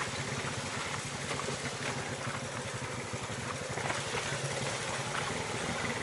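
Off-road vehicle's engine running steadily at an even, low speed, with a hiss of noise over it.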